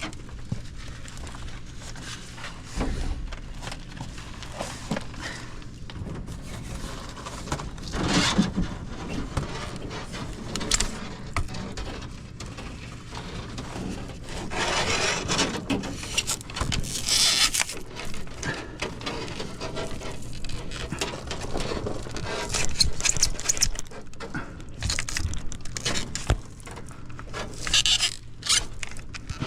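Irregular scraping and rattling of a steel fish tape and electrical wire being worked through a hole in an RV's metal frame, with louder spells of scraping now and then.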